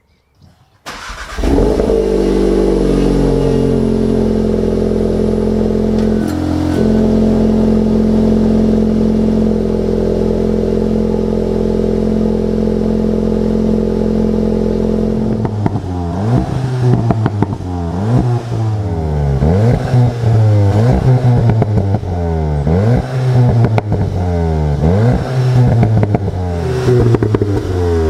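Volkswagen 2.0-litre turbocharged four-cylinder engine starting about a second in through its stock exhaust with particulate filter. Its idle flares on start-up, then settles to a steady idle. About halfway through it is blipped in quick, repeated revs, one after another, up to the end.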